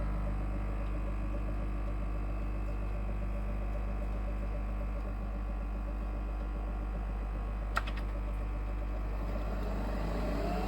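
Nespresso Vertuo Next coffee machine running its water-only cleaning cycle: its pump hums steadily as it flushes water through the machine. A single short click comes about three-quarters of the way in.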